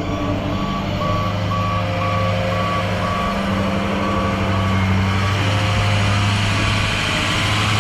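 Truck's reversing alarm beeping about twice a second over the steady run of its engine as it backs up; the beeps fade out about five seconds in.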